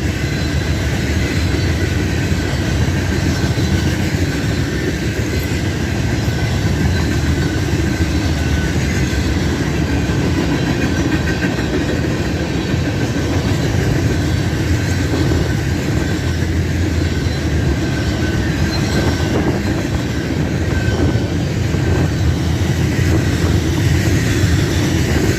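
Freight train cars rolling past, a steady loud rumble of steel wheels on the rails with clickety-clack.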